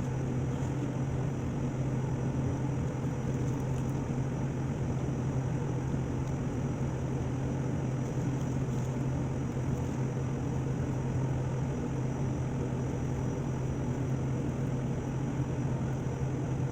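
Steady low mechanical hum with a faint high-pitched steady tone above it, unchanging throughout.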